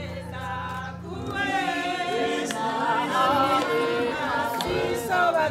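A group of voices singing together, unaccompanied, in choir-like harmony.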